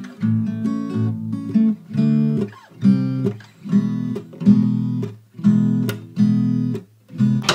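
Background music: strummed acoustic guitar chords in a steady, stop-start rhythm.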